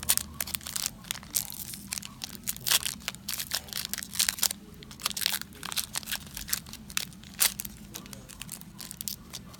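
Foil wrapper of a Magic: The Gathering booster pack crinkling and crackling as it is handled, in many quick, irregular crackles.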